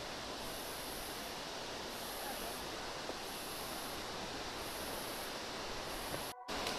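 Forest ambience: a steady hiss with a high-pitched insect chorus that swells and fades about once a second. The sound drops out for a split second near the end.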